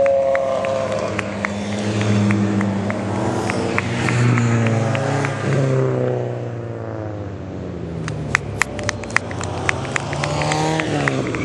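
Hill climb race cars' engines revving hard as two cars accelerate through a hairpin past the listener one after another, the engine pitch rising and falling with the throttle and gear changes. In the latter part, a run of sharp cracks and pops sounds over the engine.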